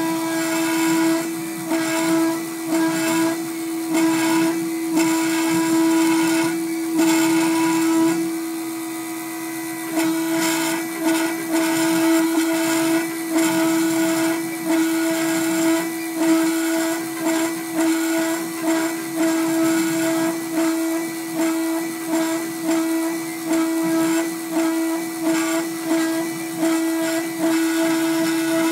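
Gravograph IS400 engraving machine running, its high-speed spindle giving a steady whine while the cutter works through two-layer engraving plastic, the sound swelling and easing about once a second as the head moves. It goes briefly quieter about eight seconds in, then picks up again.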